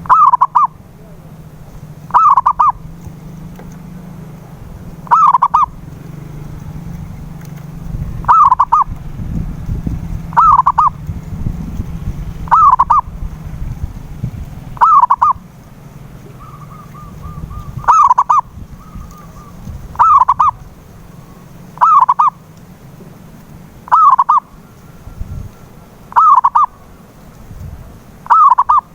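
Zebra dove (perkutut) cooing: a short phrase of quick coo notes, repeated about every two seconds, over a low steady hum.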